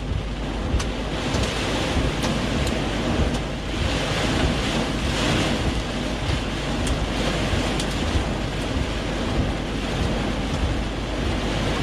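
Heavy rain pounding on a vehicle's roof and windshield, heard from inside the cab as a steady rush with scattered sharper hits of drops or hailstones.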